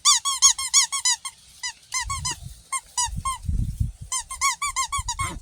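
Five-week-old puppies squeaking in quick runs of short, high yelps, about six or seven a second, in three bursts, with some low thuds in between.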